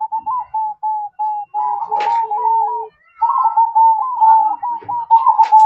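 Zebra dove (perkutut) singing: a fast run of short, clipped coos, pausing briefly about three seconds in and then resuming. A sharp click comes about two seconds in and another near the end.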